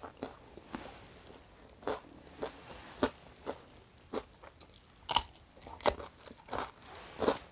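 A person biting and chewing crunchy food close to the microphone, with crisp crunches of a fresh cucumber. The crunches come one after another, about one a second, and the sharpest pair falls a little past halfway.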